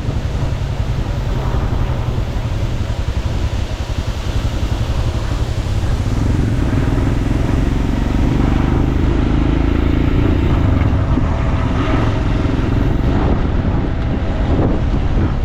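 Motorcycle engine running while the bike is ridden, with a steady low rumble of engine and wind; the engine note grows a little louder from about six seconds in.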